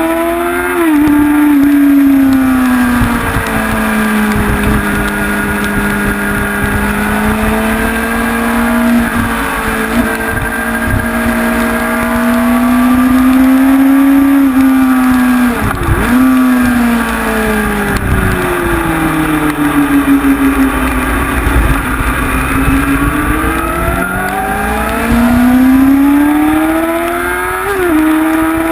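Honda CBR sportbike's inline-four engine running hard on track, its revs rising and falling slowly through long stretches, with sudden pitch breaks at gear changes three times: about a second in, about halfway through, and near the end.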